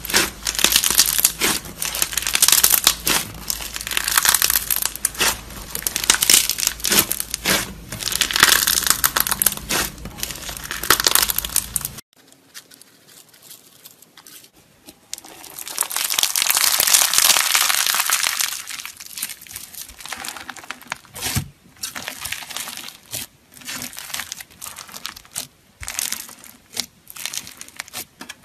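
Crunchy bead-filled slime squeezed and kneaded by hand, with dense, rapid crackling and popping. After a sudden cut, a steady pour of sequins and sprinkles hisses onto the slime for a few seconds, followed by scattered crackles as the slime is pressed with the fingers.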